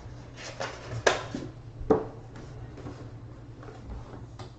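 A few light clicks and knocks from cards and packaging being handled on a table, over a steady low hum.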